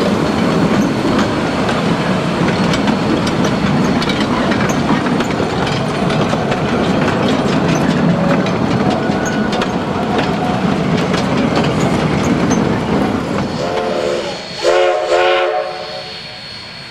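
A narrow-gauge steam train's cars rolling past close by: a steady rumble, with the wheels clicking over the rail joints. Near the end the locomotive's steam whistle sounds two or three short blasts.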